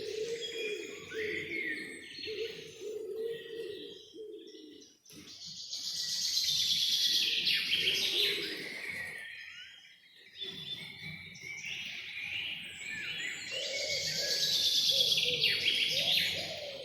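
Several songbirds singing and chirping, with high, fast, gliding phrases; two long stretches of dense, rapid song rise to the loudest point, one a few seconds in and one near the end, with brief pauses between. A lower, wavering bird call runs underneath at the start and again near the end.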